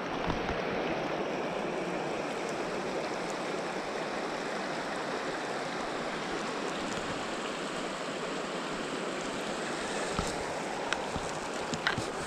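Shallow river water running steadily over a stony riffle, with a few light clicks near the end.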